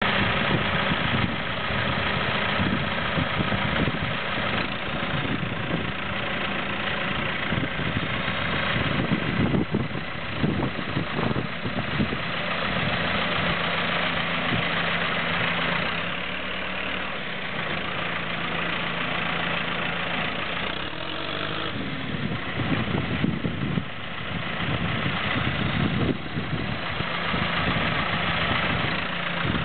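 Tractor diesel engine idling steadily, with some uneven low surges.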